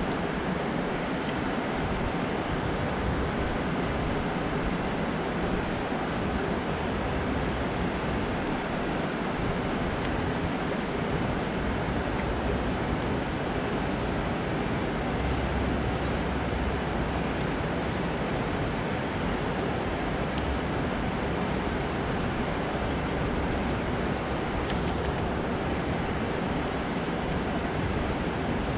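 Steady rushing of water pouring over a concrete dam spillway and running fast below it, an even noise with no breaks.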